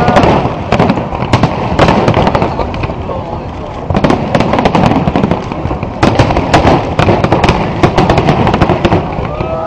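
Aerial fireworks display: a dense, irregular barrage of sharp bangs and crackles over a low rumble, with several reports a second. It thins out briefly about three seconds in, then picks up again.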